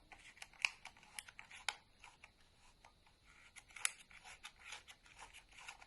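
Film winding knob of a Voigtlander Bessa 46 folding camera being turned to wind on roll film: a run of small, irregular clicks with faint scratching of the film's backing paper.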